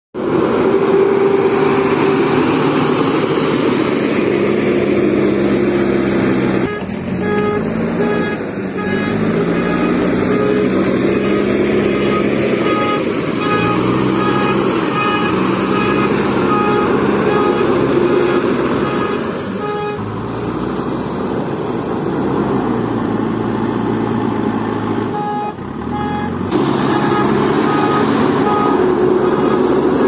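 JCB 3DX backhoe loader's diesel engine working under load, its pitch rising and falling as the operator revs it to push and lift soil with the front bucket. A short beep repeats at an even rate over the engine for stretches, from about seven seconds in.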